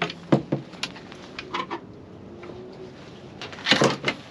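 Scattered knocks and clunks of fishing gear being handled in a small boat, with a louder scuffling clatter near the end.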